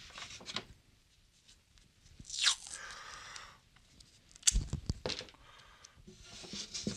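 Cloth hockey tape being pulled off the roll with a rasping rip a couple of seconds in, then a few sharp knocks and scratchy handling noises as the tape is worked into the guitar.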